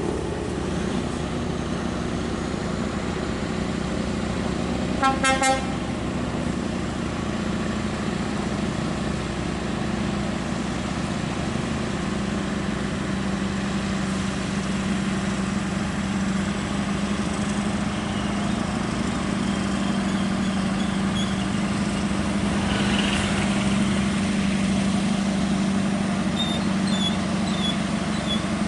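Heavy diesel truck engines running steadily, growing somewhat louder in the second half as a truck creeps nearer. A short horn toot sounds about five seconds in.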